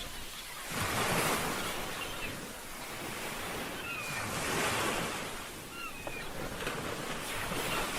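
Sea waves washing onto a shore, the surf swelling and ebbing every couple of seconds. There are a few faint short chirps in between.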